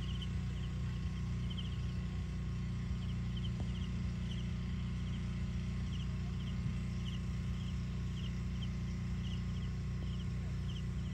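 An insect chirping in short, even trills, about one and a half a second, over a steady low rumble.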